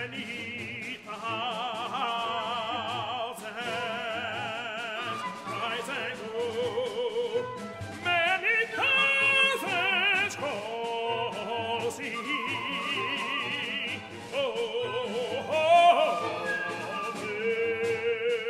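Contemporary chamber orchestra music: sustained high lines with wide vibrato over a pulsing low note, with louder entries about halfway through and again near the end.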